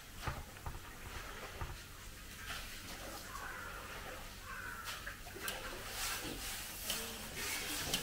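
Scattered light clicks and knocks, growing more frequent in the last few seconds, with a faint animal call near the middle.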